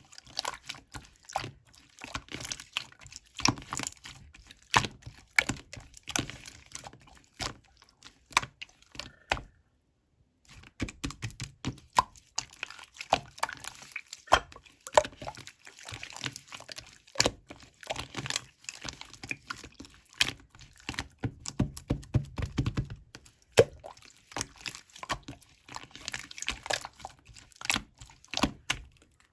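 Clear slime being squished and stretched by hand, a dense run of wet clicks and pops with a brief pause about ten seconds in.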